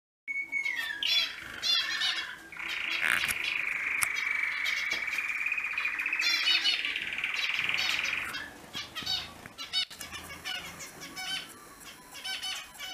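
Zebra finches calling with many short, quick chirps. A buzzy, steady sound lasts about six seconds in the middle, and the chirping goes on more sparsely after it.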